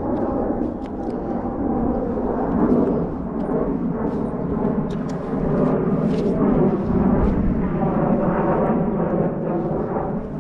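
Strong wind buffeting the camera microphone: a steady, loud, low rumbling rush.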